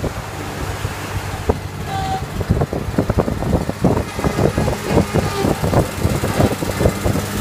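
Wheel loader's diesel engine running steadily while it pushes a pile of seaweed, with a fast irregular clatter of knocks and rattles from about two and a half seconds in.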